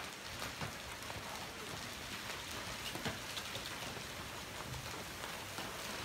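Supercell downpour of rain and hail on a parking lot: a steady hiss, with a few faint sharp ticks of hailstones striking.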